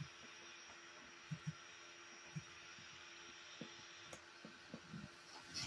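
Near silence: a faint steady hum with a few soft, short low thumps.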